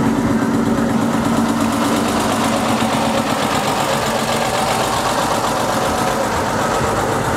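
Ikarus 260 bus's diesel engine running steadily at low revs as the bus pulls slowly away, with a low steady hum that fades about halfway through.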